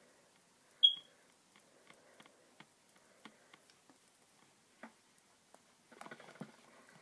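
Faint, scattered small clicks and taps from fingers and a plastic tube of face mask being handled, with one short, high-pitched beep about a second in, and a brief rustle about six seconds in.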